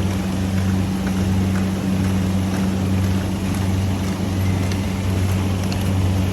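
Automatic folder-gluer machine for PET plastic boxes running steadily: a constant motor hum with a few faint light ticks from its moving parts.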